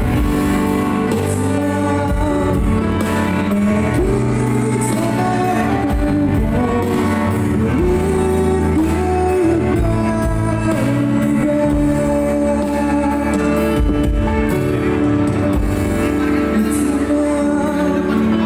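A young man singing a song into a handheld microphone, backed by guitar and band accompaniment.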